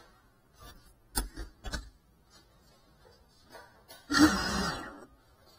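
Crashed FPV quadcopter on a hard floor: a few light knocks, then a loud burst of motor and propeller noise about four seconds in that lasts about a second and dies away.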